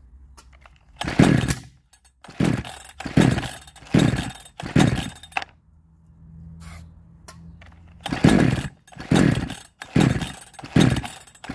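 A 62cc Chinese two-stroke chainsaw being pull-started: two runs of quick recoil-cord pulls, each pull a short loud burst of cranking, about five in the first run and four or five in the second, with a pause between. The engine does not start; it is freshly tuned after a coil change, and the owner suspects the ignition timing is off.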